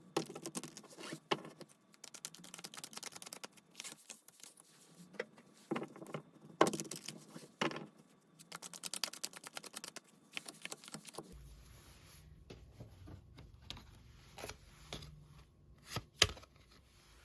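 Tarot cards being shuffled and handled: runs of quick papery clicks and taps, with a few sharper taps. A low hum comes in about eleven seconds in.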